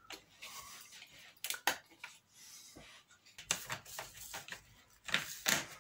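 Scattered light clicks and rustling of hands pressing laser-cut wooden truss pieces together, pushing the tangs down into their slots.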